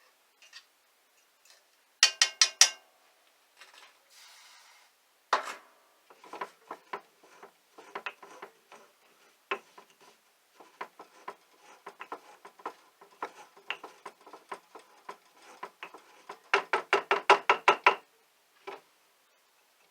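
Clatter of things being handled: scattered knocks and clicks, with a quick run of four sharp clicks about two seconds in and a rapid run of sharp clicks near the end.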